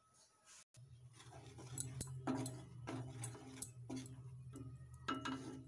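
Wooden spatula stirring makhana kheer in a non-stick kadhai, with scattered light clicks and scrapes against the pan over a steady low hum that sets in about a second in.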